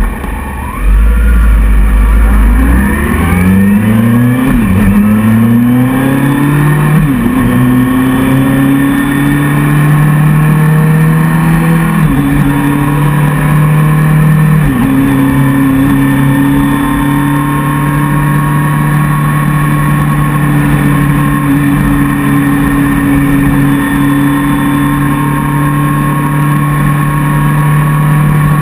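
Motorcycle engine pulling away from a standstill and accelerating through the gears. Its pitch climbs and drops back at each of four upshifts, about 5, 7, 12 and 15 seconds in, then holds steady at cruising speed, with wind noise on the bike-mounted camera's microphone.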